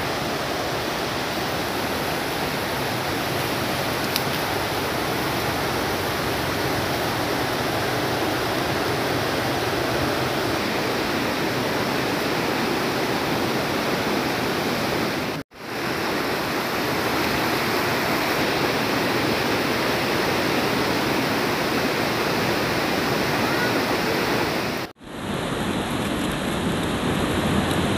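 Steady rushing of a shallow, rocky river flowing over stones, cutting out briefly twice.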